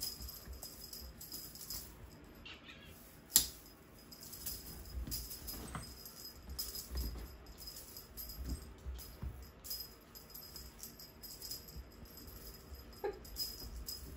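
Feather teaser toy jangling in quick irregular shakes as it is waved for a leaping Savannah kitten, with soft thumps on the bed and one sharp click about three and a half seconds in.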